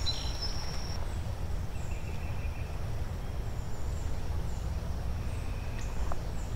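Creekside ambience: a steady low rumble, with thin, short high bird chirps scattered through it.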